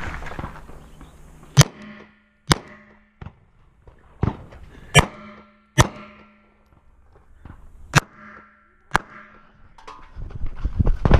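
Semi-automatic pistol fired in single shots, about eight in all, most under a second apart, with a longer pause around six to seven seconds in. A rustling noise rises near the end.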